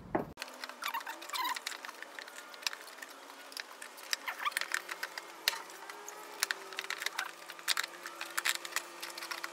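Scattered light clicks, taps and scraping of hands working a plastic air filter box and its hoses into position inside a Vespa Sprint 150's body.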